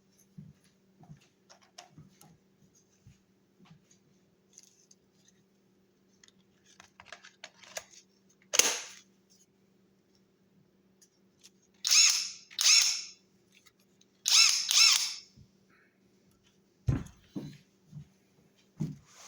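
Brushless cordless impact wrench triggered in short bursts, its motor whirring up for about half a second at a time: once about a third of the way in, then two quick pairs. Soft clicks of the tool being handled come before, and a few dull thumps of it being set down come near the end.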